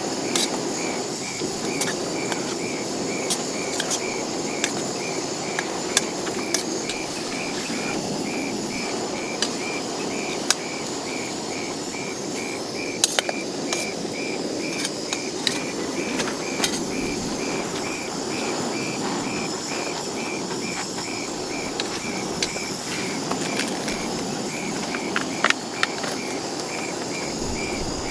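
An insect chirping steadily, about two short chirps a second, over a steady rushing background noise, with scattered sharp ticks.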